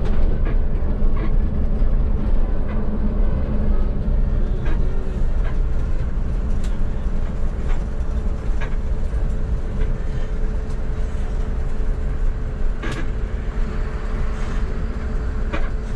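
Coach bus under way: a steady low engine and road rumble with a faint steady whine, and now and then a short sharp knock or rattle.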